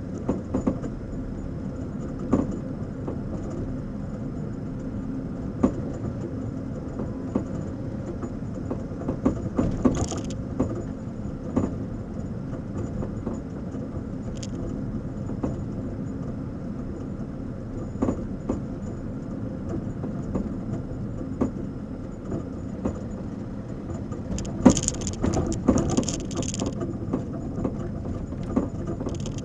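Car on the move, with a steady low road and engine rumble and irregular short clicks and knocks, thickest about ten seconds in and again near the end: the abnormal noise from aftermarket coilover suspension.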